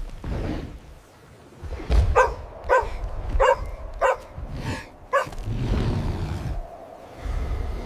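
A puppy barking six times in quick succession, about one bark every half second, over a low rumble.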